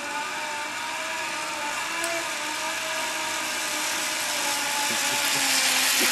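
Zip line trolley pulleys running along the steel cable: a steady wavering whine with a rushing hiss, growing louder as the rider nears and loudest near the end.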